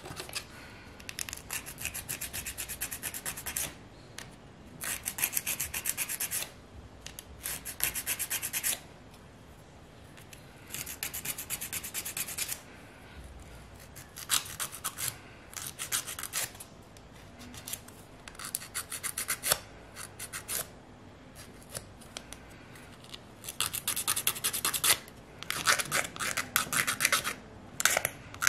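A hand nail file rasping back and forth across artificial gel nails in quick strokes. It comes in repeated bouts of one to two seconds with short pauses between them.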